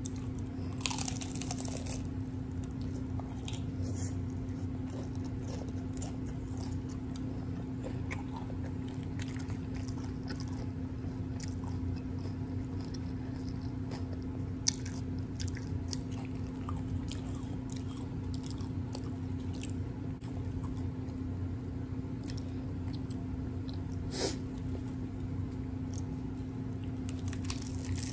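Close-up biting and chewing of a crunchy hard-shell taco. Loud crunches come about a second in and again near the end, with small wet chewing clicks between. A steady low hum sits underneath.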